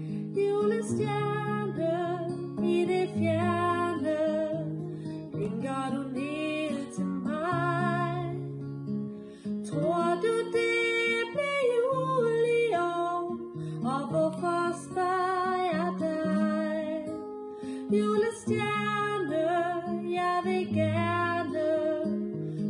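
A woman singing a slow song in Danish, with vibrato on held notes, accompanied by an acoustic guitar.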